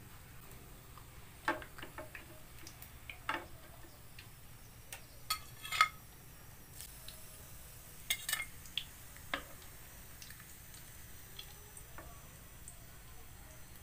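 Metal spatula clinking and scraping against a frying pan and a plate as fried pork chops are lifted out: a string of separate light clinks, the loudest about six seconds in, with another cluster a little after eight seconds.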